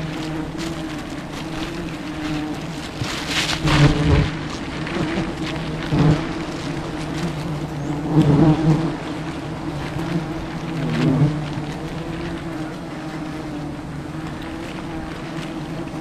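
A swarm of wild honeybees buzzing around the microphone as their comb is cut from a branch. It is a steady hum that swells several times as single bees fly close past, one of them dipping and rising in pitch as it goes by.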